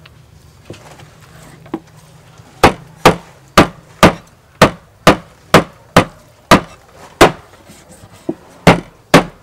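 Meat cleaver chopping pork belly on a wooden chopping board: a couple of light taps, then a steady run of sharp chops about two a second, each knocking against the wood.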